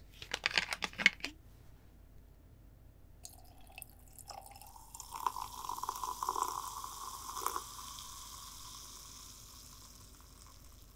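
Ice cubes clinking into a glass drink jar holding mint, then liquid poured from a plastic bottle over the ice for about four seconds, ending about two-thirds of the way through. A high fizzing hiss follows and fades out.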